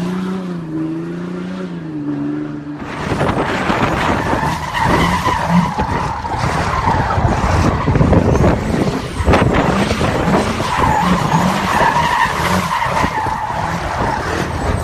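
A diesel Jeep Grand Cherokee engine revving up and down for about three seconds. Then comes the continuous, loud squeal and scrub of a pickup truck's tyres spinning donuts, with its engine held at high revs.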